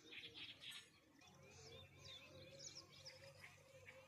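Faint birdsong: scattered short chirps and whistled calls. A faint low steady hum sets in about a second in.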